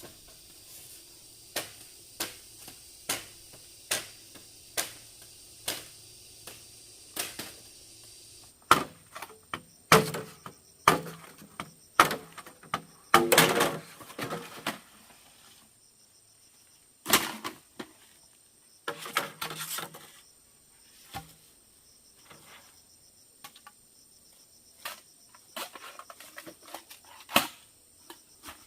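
Repeated sharp strikes on wood, about one a second at first, then louder and irregular, with a scraping rustle about halfway through and sparser knocks near the end.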